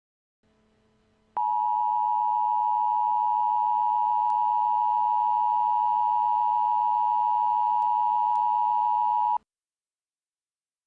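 Emergency Alert System attention signal: a steady alert tone just under 1 kHz, starting about a second and a half in and holding for about eight seconds before cutting off abruptly. It announces the emergency warning message that follows.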